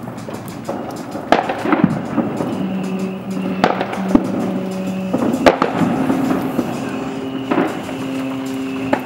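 Ships' hooters sounding long, steady blasts at several different pitches, overlapping and changing, to greet the New Year. Fireworks go off with repeated sharp bangs through them, the loudest about five and a half seconds in.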